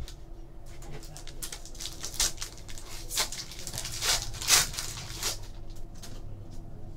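Foil wrapper of a Topps Chrome trading-card pack crinkling and tearing as it is opened by hand, followed by the cards being handled: a run of short crackling rustles, busiest in the middle.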